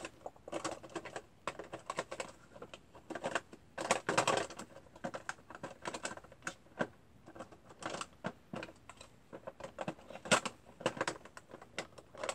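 Irregular clicking and clattering of small hard plastic cases as ink pads are rummaged through and picked up.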